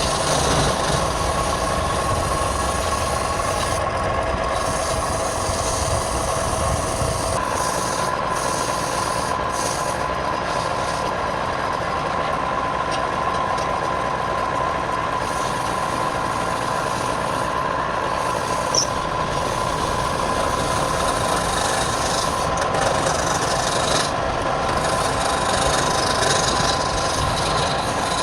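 Wood lathe running with a steady motor whine, while the spinning wood is worked with continuous rubbing and scraping. The tone shifts and the low rumble drops away about seven seconds in.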